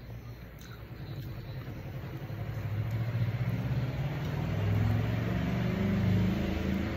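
A motor vehicle's engine running, a low rumble that grows louder over the first few seconds and stays loud until near the end.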